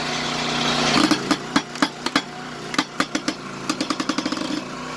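Small gas engine of a 22-ton hydraulic log splitter running steadily under load as the wedge is forced into a large log. From about a second in, a quick series of sharp cracks and snaps as the wood begins to give way.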